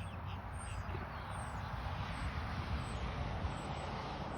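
Steady hum of distant road traffic with a low rumble, and faint high chirps a few times.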